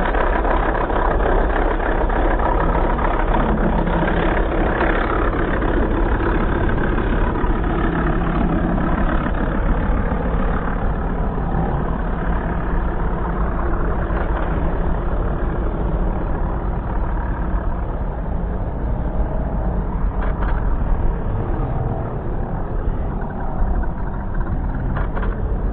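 Large-scale RC Hawker Sea Fury model's radial engine running at full power on its takeoff run and climb-out, a steady loud drone whose pitch drops as the plane passes and pulls away.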